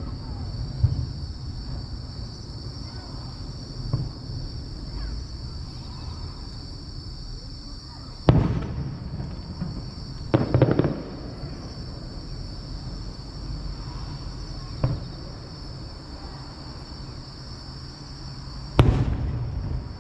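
Fireworks shells bursting every few seconds, each a sharp bang that fades away. The loudest come about eight seconds in, as a quick double a couple of seconds later, and near the end, with fainter ones in between.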